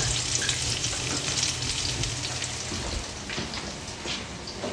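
Bread cubes and rosemary frying in olive oil in a pan: a steady sizzle with small crackles, easing off a little in the second half.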